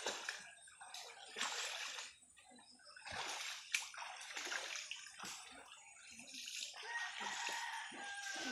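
Water sloshing and splashing in short bouts as water buffaloes (carabao) shift about while wallowing in a shallow muddy creek.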